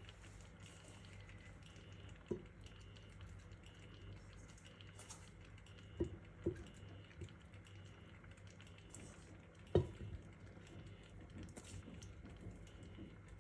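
Faint, scattered knocks and taps as vegetable pieces are set into a tagine, about five in all, the loudest near the end, over a low steady hum.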